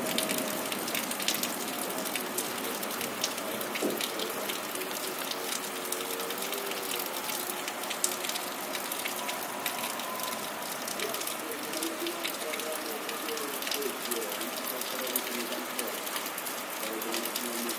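Steady rain falling, with many small drop ticks over an even hiss.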